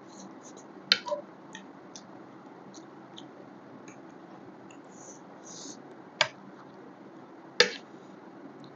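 Close-miked eating sounds: faint mouth and chewing noises over a steady low hiss, with a few sharp clicks, two about a second in and two more near the end.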